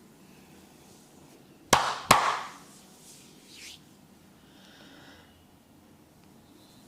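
Two loud, sharp smacks from a barber's hands during a massage, about a third of a second apart, the second dying away briefly.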